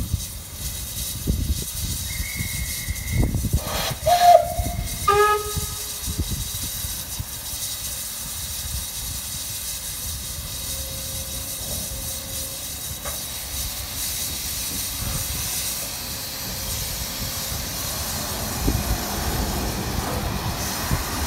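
Steam locomotive No. 51456, an ex-Lancashire & Yorkshire 0-6-0 saddle tank, at the platform: a thin high whistle about two seconds in, then loud steam whistle blasts around four and five seconds in. After that comes steady steam hissing, which grows as steam vents from the cylinder drain cocks and the train starts away.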